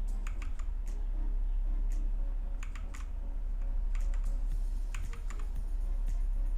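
Keys of a Redragon Fizz K617 60% mechanical keyboard fitted with pudding keycaps being pressed in a few short bursts of quick clicks, over a steady low hum.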